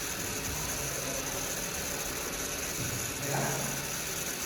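Small DC motor of an Arduino prototype running steadily, a continuous hum with hiss.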